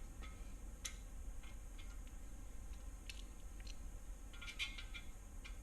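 Light, scattered metallic clicks of a hand socket wrench snugging an ARP main stud into an LS engine block, over a steady low hum.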